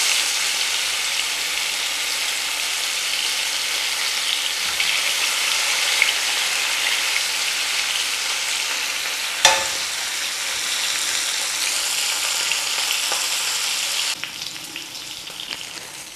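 Mackerel frying in hot coconut oil in a shallow pan, a steady sizzling hiss as the fish are turned with a spatula. A single sharp click comes about nine seconds in, and the sizzle drops quieter about two seconds before the end.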